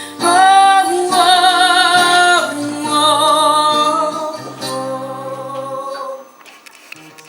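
Female voice singing long held notes with vibrato over instrumental backing, the end of a pop song's chorus; the music stops about six seconds in.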